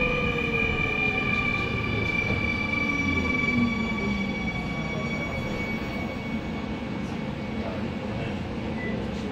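Seoul Subway Line 2 electric train heard from inside the car, slowing to stop at a station. Several traction-motor whines fall slowly in pitch over a steady rumble of wheels on rail, and the sound eases off gradually.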